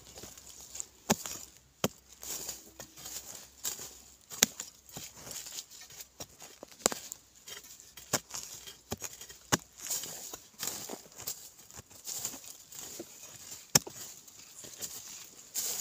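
Flat metal digging blade chopping into and scraping dry, root-laced soil, about a dozen sharp strikes at irregular intervals roughly a second apart, with loose earth crumbling and rustling between them.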